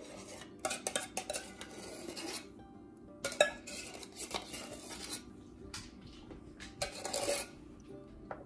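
Metal spoon scraping and stirring thick condensed cream soup in a mixing bowl, with irregular clinks and scrapes against the bowl and can.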